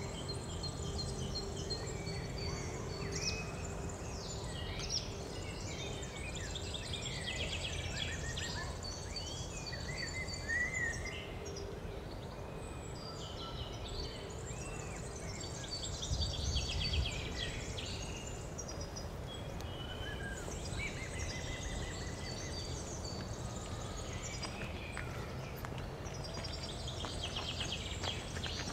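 Several songbirds singing and calling in chirps, whistled slides and rapid trills. Underneath runs a steady low rumble that swells briefly a little past the middle.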